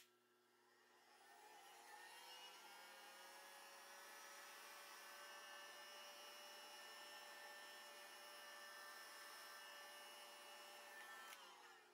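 Faint whine of an industrial sewing machine's motor. It rises in pitch as it spins up during the first two seconds, runs steadily, then winds down near the end.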